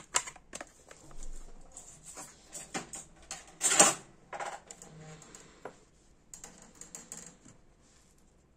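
Small metal spare parts rattling and clicking in a clear plastic compartment box as it is handled, with one louder rattle about four seconds in. Light clicks of tiny parts follow and die away near the end.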